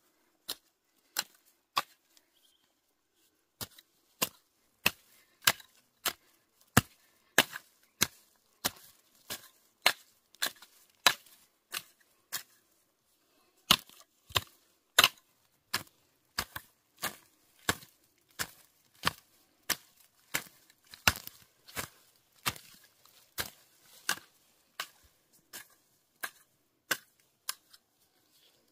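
Hand hoe chopping into dry, clumpy soil: a steady run of sharp strikes, about one to two a second, with a couple of brief pauses.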